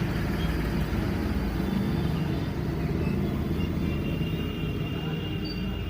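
A steady low rumble, with a faint thin high tone entering about halfway through.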